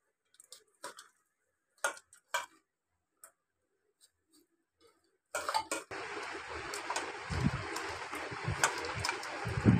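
Scattered light clicks and taps from steel plates and hands mixing food. About five seconds in, a steady hiss comes up with soft low thumps under it.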